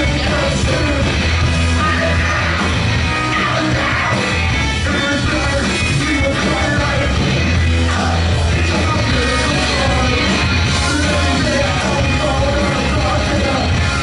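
Live rock band playing loud: electric guitar, electric bass and drums, with the singer shouting and singing into a microphone.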